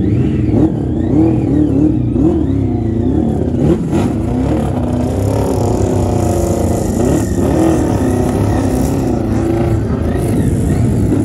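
Several 1000cc grasstrack sidecar racing engines revving, their pitch rising and falling unevenly as the outfits are push-started and ride off.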